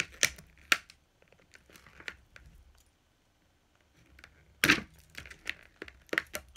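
Clear plastic doll packaging crackling and snapping as it is handled and cut with scissors: scattered sharp snaps with soft crinkling between, a lull of about a second near the middle, and the loudest snap a little under five seconds in.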